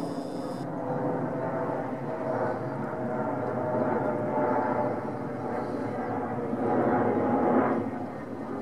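Boeing 777 twin-engine jet airliner passing overhead at altitude: a continuous jet engine rumble with a steady drone in it. It swells about halfway through, is loudest near the end, then eases off.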